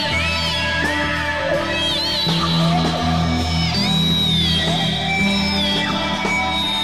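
Loud rock music led by guitar, with notes bending up and down over steady low bass notes.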